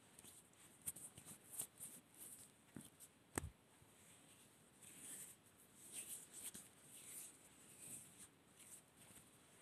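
Faint, close-miked scratchy rustling of adhesive tape being handled and pressed on to fix a clip-on microphone, with one sharp tap about three and a half seconds in.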